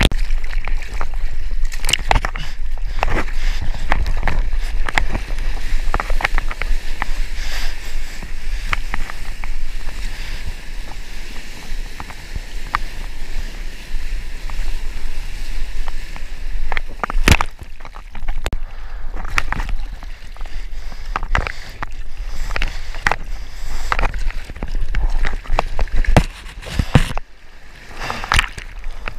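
Churning whitewater foam and water splashing around a surfboard, picked up close to the surface by a mouth-mounted GoPro: a steady rush broken by many sharp splashes.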